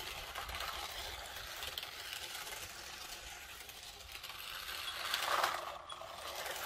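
Battery-powered 1:16 scale New Bright RC Camaro driving over rough asphalt: its small electric motor and plastic gears whirring, with the tyres grinding on the grit. It gets louder about five seconds in as the car comes close.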